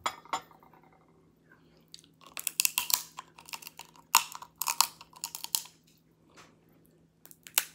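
Close-up eating of crab legs: crackly snaps of shell and wet chewing and sucking of the meat, in two runs of clicks starting about two and four seconds in.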